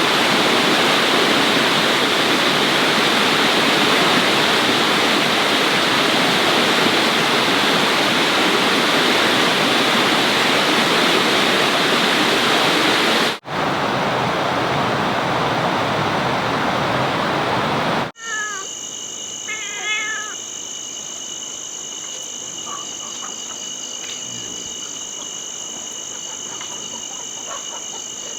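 Steady rushing water, like a forest stream or waterfall, broken by two abrupt edits. After the second edit, a quieter forest ambience takes over: insects buzzing in steady high tones, with a few short animal calls just after the cut.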